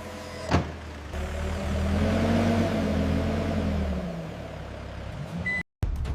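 A vehicle engine revving up and then easing back down, after a short knock at the start; the sound cuts off suddenly near the end.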